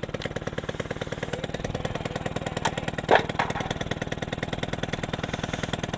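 Single-cylinder engine of a Hero Honda Super Splendor motorcycle running steadily, with a rapid, even pulse. A brief sharp sound comes about three seconds in.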